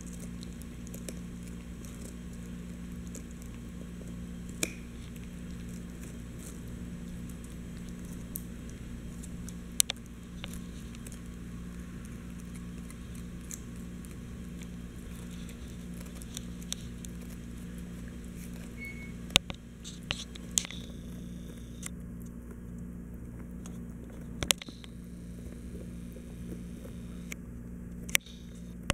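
A Chihuahua gnawing a knotted rawhide chew: soft chewing with scattered sharp clicks of teeth on the rawhide, a handful of them loud, over a steady low hum.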